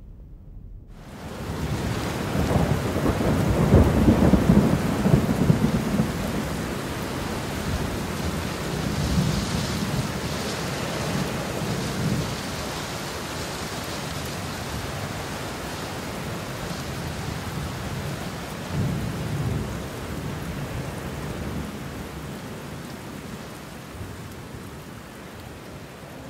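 Rain falling with rolling thunder, starting suddenly about a second in. The heaviest rumble comes a few seconds in, with weaker rumbles later.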